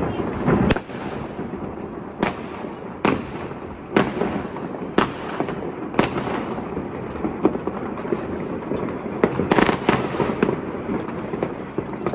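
Fireworks going off all over a city: a continuous crackle of many distant rockets and firecrackers, broken by sharp, loud bangs about once a second, with a quick cluster of bangs near the end.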